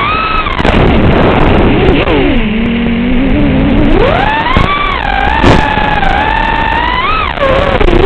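FPV racing quadcopter's brushless motors whining with the throttle. The pitch falls low for about a second and a half as the throttle is cut, then climbs back up, and dips again near the end.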